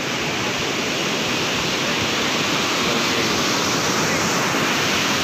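Surf breaking on the shore: a steady, loud rush of waves with no distinct separate strikes.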